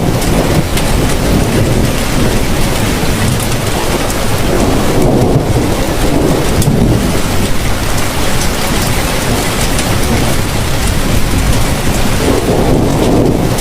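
Heavy rain falling steadily, with a low rumbling that swells and fades a few times.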